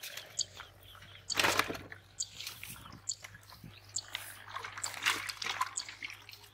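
Water sloshing and splashing in short, irregular bursts, the loudest about a second and a half in and again about five seconds in.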